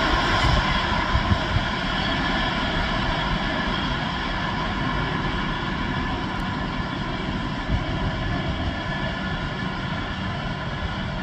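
Container freight train's wagons rolling away on the rails: a steady rumble with a steady high whine over it, fading slowly as the last wagons pass.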